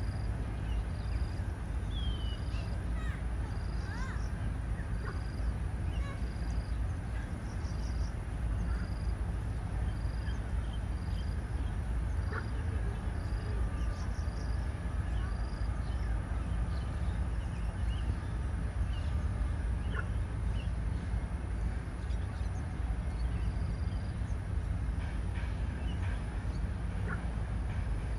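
Outdoor ambience of birds calling over a steady low rumble: a short high note repeats about once a second through the first half and returns briefly near the end, with a few scattered chirps.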